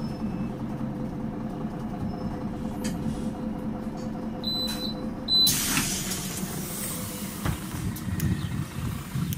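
Solaris Urbino 12 III city bus idling on its 9.2-litre DAF six-cylinder diesel, with the clatter it makes at low revs. About four and a half seconds in come three short high beeps, then a sudden loud blast of compressed-air hiss from the bus's air system that fades over about two seconds.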